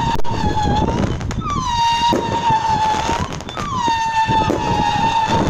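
Howling Wolves 30-shot whistle cake firing: shot after shot of shrill whistles, each starting a little high and dropping to a steady pitch for a second or so, about three overlapping in turn. Beneath them run the pops and rush of the shells and their small bursts.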